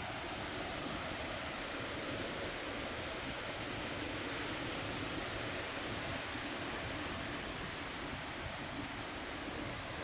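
Ocean surf breaking and washing in during a large south swell: an even, steady rush of noise with no distinct individual crashes.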